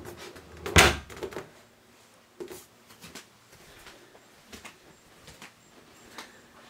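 A single dull thump about a second in, then a few faint scattered knocks, with the short echo of a small room.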